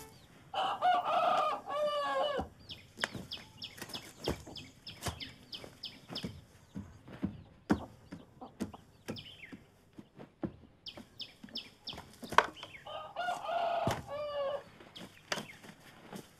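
A rooster crowing twice, once about half a second in and again near the end. In between come many short chirps and clucks, typical of village poultry.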